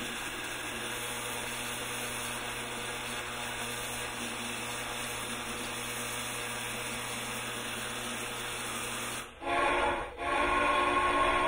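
Lionel LionChief Blue Comet locomotive's sound system playing a steady steam hiss while the engine stands. Near the end it sounds its steam whistle twice, a short blast and then a longer one.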